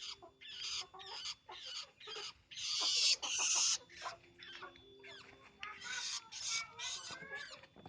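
Long-tailed shrike (pentet) whining: harsh, rasping calls in a quick series, several a second, with two longer, louder calls about three seconds in.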